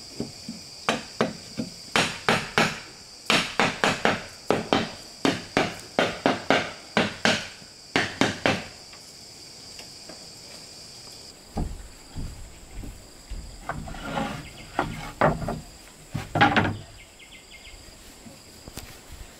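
Hammer striking wood in a steady run of blows, about two a second, for roughly nine seconds, then a scatter of irregular knocks and thumps as the wood is worked. Insects chirr steadily in the background.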